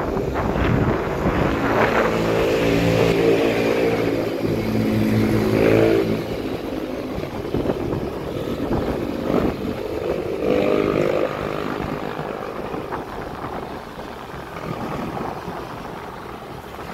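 Motorcycle engine running while riding, with road rumble. The engine note rises and falls and is loudest in the first six seconds, then softer, with another rise around ten seconds in.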